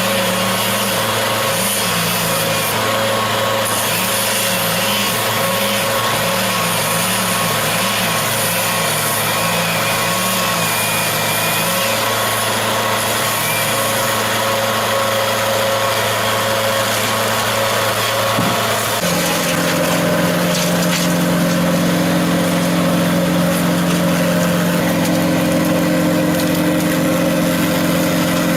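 An engine running steadily. Its low note wavers slowly up and down at first, then steps abruptly up to a higher, steady pitch about two-thirds of the way through.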